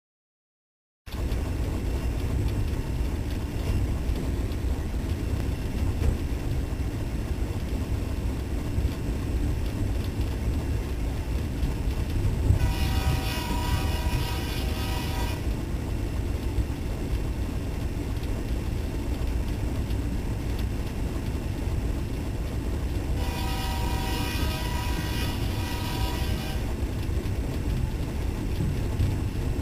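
Train rumbling along, with two long horn blasts of about three seconds each, roughly ten seconds apart.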